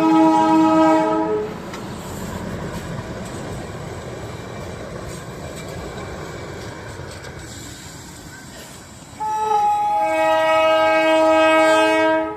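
A train horn sounds a steady multi-note chord, which stops after about a second and a half. The train then runs with a quieter rumbling clatter. About nine seconds in, the horn sounds again for about three seconds and cuts off.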